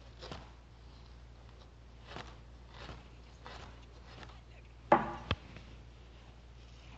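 A woman's short, loud yell about five seconds in, followed at once by a sharp knock, among faint breathy scuffles.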